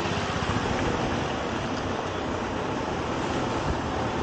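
Steady low rumble of a car driving slowly, engine and tyre noise with no change in pace.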